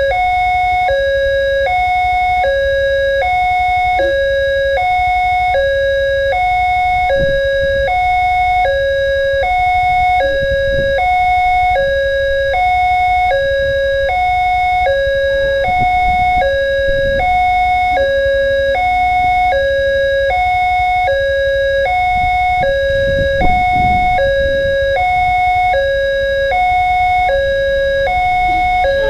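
Railway level-crossing warning alarm sounding from its loudspeaker: an electronic two-tone ding-dong, two alternating notes each about half a second long, repeated steadily over a low rumble. It signals that a train is approaching and the barrier is down.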